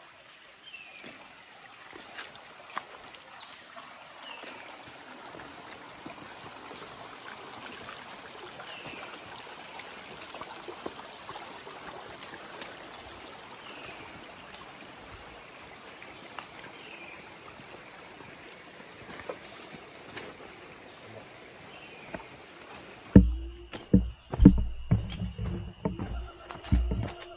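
Steady rushing of a shallow, rocky jungle stream, with a short falling call repeating every few seconds above it. About 23 s in it cuts to heavy footfalls and thumps close to the microphone, with a steady high buzz behind them.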